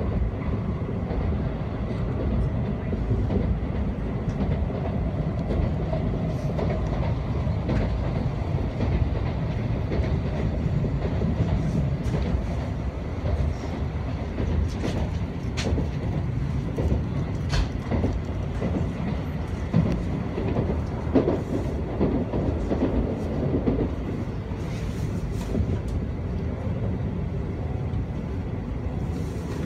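N700A Shinkansen train running, heard from inside the passenger car: a steady low rumble of wheels and running gear on the track. A few sharp clicks come about halfway through.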